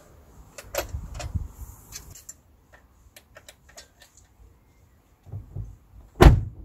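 Light clicks and knocks of a roof-rack bar and its plastic feet being handled, then an Opel Astra K's front door swung shut with a single heavy thump near the end, the loudest sound.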